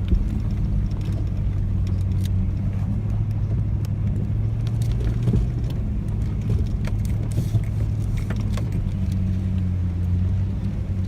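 Off-road vehicle engine running steadily at a low, even pitch while driving a rough trail, with scattered short rattles and knocks.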